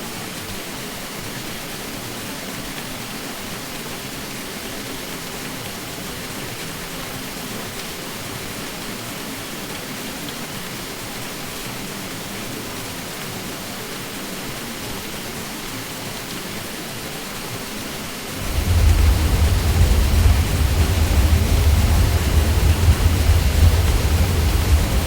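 Ceiling fan running with a steady whooshing hum from the whirling blades. About 18 seconds in, a deep low hum comes in and the whole sound gets louder, then holds steady.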